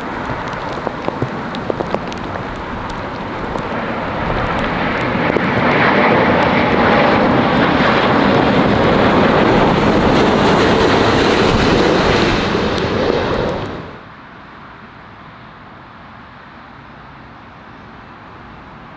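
Airbus A350 jet engines on final approach passing low overhead: the jet noise swells over a couple of seconds to a loud, steady rush, then cuts off abruptly about two-thirds of the way through. A much quieter, steady rush follows, and there are a few sharp clicks between one and two seconds in.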